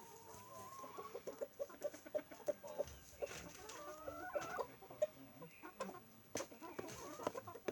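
Silkie chickens clucking: a run of short, quick clucks with a few longer drawn-out calls, fairly faint.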